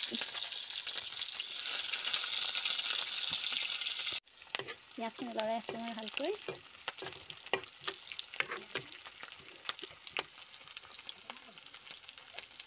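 Sliced onions sizzling in hot oil in a wok. The sizzle is loud and steady for about four seconds and stops at a cut. After that it is quieter, with frequent clicks and scrapes as a ladle stirs the onions.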